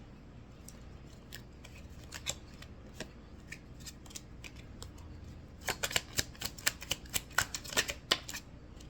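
A deck of oracle cards being shuffled and handled: a few scattered light card clicks, then a quick run of snapping card flicks starting a little under six seconds in and lasting about two and a half seconds.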